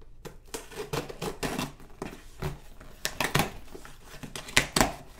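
Scissors cutting through the tape and cardboard of a small shipping box: a run of short snips and scrapes, the loudest two a little before the end.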